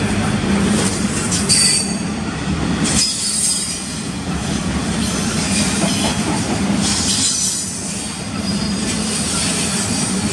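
Double-stack intermodal well cars rolling past at speed, a steady rumble and rattle of steel wheels on rail. Brief high-pitched wheel squeals come in about two seconds in and again about seven seconds in.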